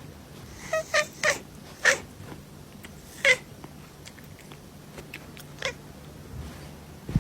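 A domestic cat giving about five short, high calls, spaced irregularly over several seconds, with a brief knock near the end.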